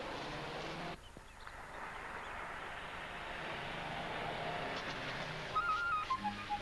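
An old car's engine running, dipping about a second in and then slowly growing louder; near the end a small wind instrument starts a quick, trilling melody.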